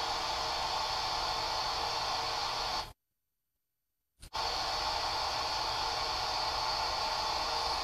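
Steady open-squelch static hiss from a handheld amateur radio transceiver tuned for ISS packet reception. It cuts out to complete silence for about a second and a half roughly three seconds in, then comes back unchanged.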